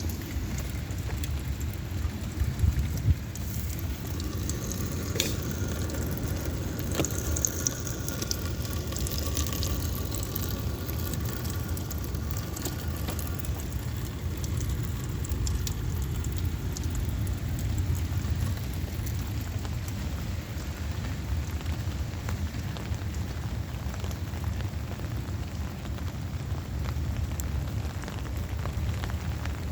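Heavy rain falling steadily, with a constant low rumble underneath and scattered sharp drip ticks. A faint steady hum runs through the first part and then fades.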